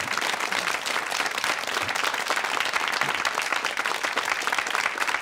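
Studio audience applauding steadily, a dense run of many hands clapping at once.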